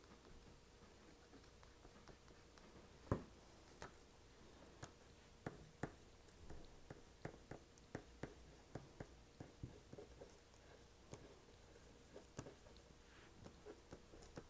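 Black crayon scratching and tapping on paper in short, irregular strokes as small curls are drawn, faint throughout, with one louder knock about three seconds in.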